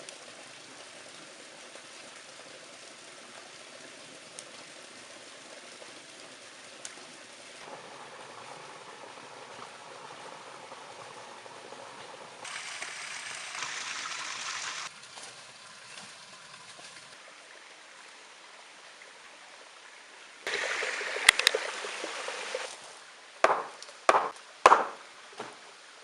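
Flowing water with a steady rushing sound, changing abruptly several times, louder for a couple of seconds a little after the middle. Near the end come a noisy loud stretch and then four or five sharp, loud sudden sounds in quick succession.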